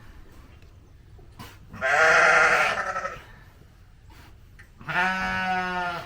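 Sheep bleating twice, each call about a second long: the first wavering in pitch, the second held steadier. It comes from a ewe straining in a difficult lambing.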